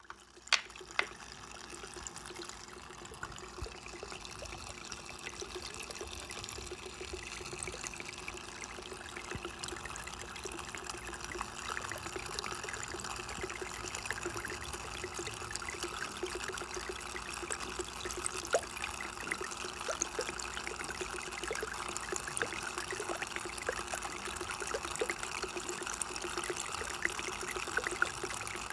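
Tabletop water fountain running, water trickling and splashing steadily with many small drips.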